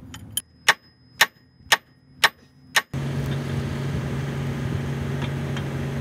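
Sharp ringing metal-on-metal strikes, about two a second and six in all, on a steel bar set against an excavator track roller's mounting. About three seconds in they stop and a steady engine drone starts abruptly.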